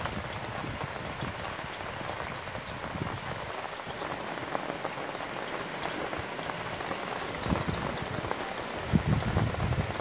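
Light rain falling, with separate drops ticking sharply on nearby surfaces. A few low rumbles of wind on the microphone come toward the end.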